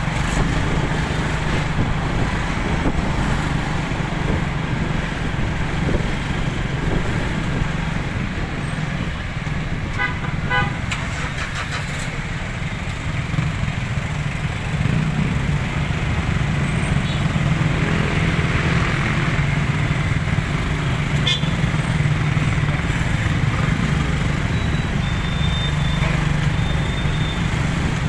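Motorcycle and car engines running in slow, congested street traffic, a steady low hum. Short horn beeps sound about ten seconds in, with another brief horn toot near the end.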